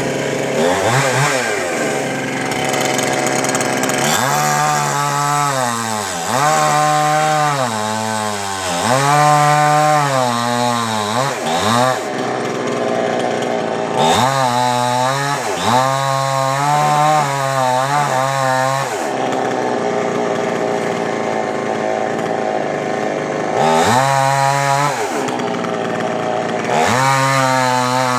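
Two-stroke chainsaw running and cutting coconut-tree wood. The engine speed repeatedly rises and falls in bursts of about a second, with steadier running in between.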